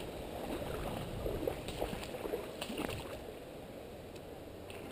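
Faint sloshing and small splashes of shallow pond water as a stick is worked through it, with a few light knocks about halfway through.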